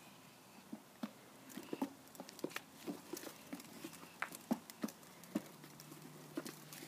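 Plastic ride-on toy being scooted along a concrete sidewalk, its wheels and body giving light, irregular clicks and taps, a few a second.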